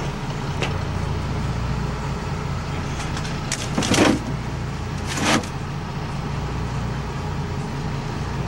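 An engine running steadily with a low hum, while two short hissing bursts come about four and five seconds in.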